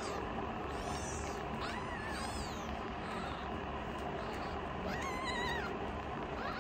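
Newborn kitten mewing: several thin, high-pitched cries, the longest about five seconds in.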